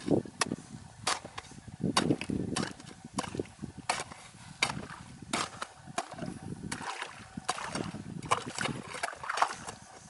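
Steel ice chisel jabbing down into a water-filled hole in lake ice: sharp, irregular strikes, roughly one or two a second, with water splashing and sloshing in the hole.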